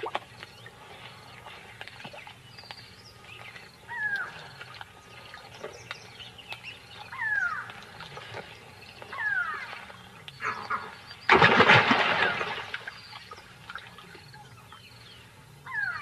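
Short high chirps of newly hatched crocodiles, each call sliding down in pitch, heard several times over faint background noise. About eleven seconds in, a loud burst of noise like a splash lasts about a second.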